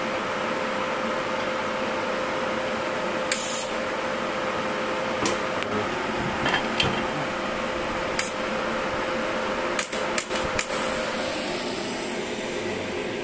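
Weiro SuperTIG-315EX inverter TIG welder switched on and idling, its cooling fan running with a steady hum and a faint steady whine. A short hiss about three seconds in, then scattered sharp clicks, several close together around ten seconds in.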